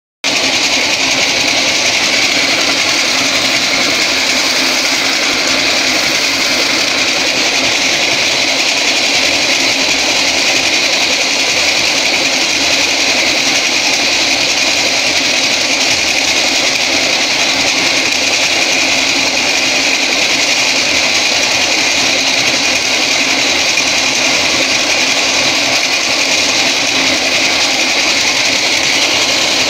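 Grain mill running steadily at full speed while it grinds dried fava beans into flour, a loud even mechanical din with no change in pace.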